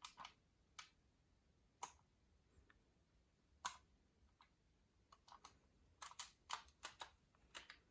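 Faint, scattered light clicks and taps of folded paper being handled and reshaped, a few spaced out at first, then a quicker run of clicks in the last few seconds.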